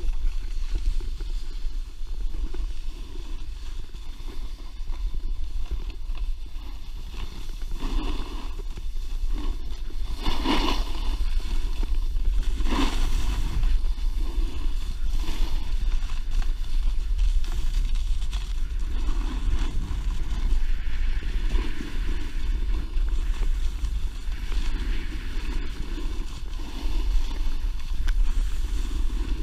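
Snowboard sliding down a groomed slope, its edges scraping the snow, under a steady low rumble of wind on an action camera's microphone. Two louder scrapes come about ten and thirteen seconds in.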